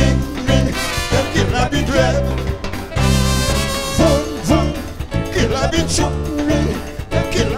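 Live calypso band music with brass over a steady dance beat.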